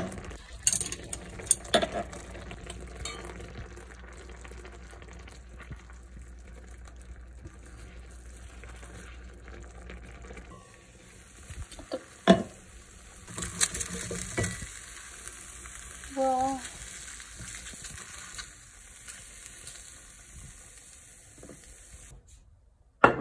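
Dumplings sizzling as they pan-fry in oil in an enameled cast-iron pot, a steady hiss that flares up for a couple of seconds about halfway through. A few sharp knocks of a utensil against the pot, the loudest about halfway in.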